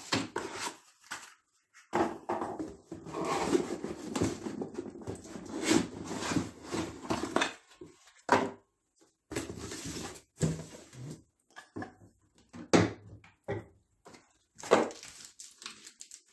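Cardboard box and packaging rustling and scraping while a circular saw is lifted out of its box and handled, with several sharp knocks, the loudest about three-quarters of the way through.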